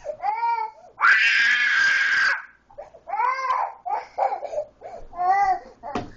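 Toddler crying in a tantrum: a long, loud wail about a second in, then a string of shorter sobbing cries, with a sharp click near the end.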